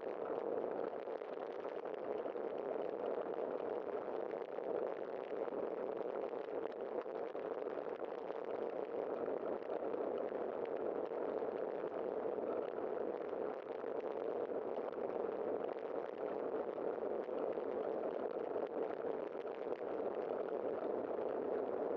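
A steady, even rush of wind and road noise picked up by a camera on a moving bicycle, with no separate knocks or passing events.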